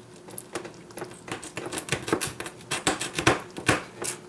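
Thin kitchen knife cutting through small chicken joints on a plastic cutting board: an irregular run of clicks and knocks from the blade striking the board, sparse at first and coming faster and louder after about a second.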